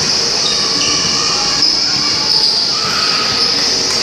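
Basketball shoes squeaking briefly on the court floor several times, over a steady high hiss of gym ambience.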